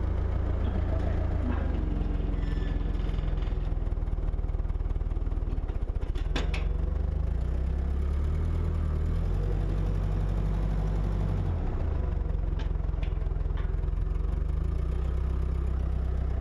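A steady low machine hum whose pitch shifts a few times, with a few sharp clicks about six seconds in and again near the end.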